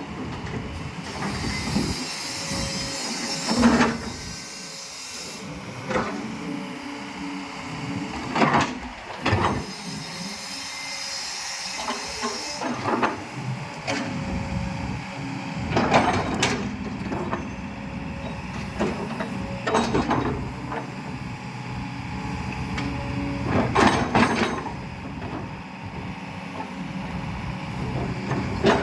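Kobelco 10-ton hydraulic excavator running, its engine humming steadily while the hydraulics hiss in two stretches, with sharp knocks every few seconds as the machine works.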